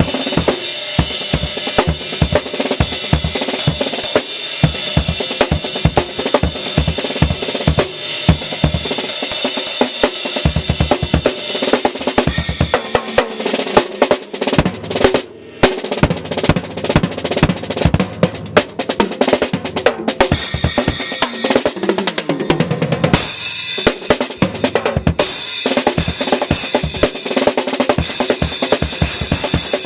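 Acoustic drum kit played in a fast solo: rapid bass-drum strokes under snare and tom fills, with cymbals ringing over the top. The playing breaks off for a moment about halfway through, then carries on.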